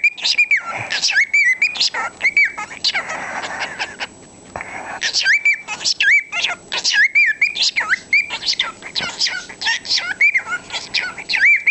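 Cockatiel gibbering: a rapid, nearly unbroken run of chirps, clicks and short whistled notes, with a brief lull about four seconds in.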